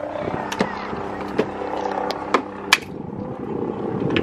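Macadamia nut shells cracking in a small hand-operated vise nut cracker: several sharp, separate cracks. A steady low drone runs under the first two-thirds and then stops.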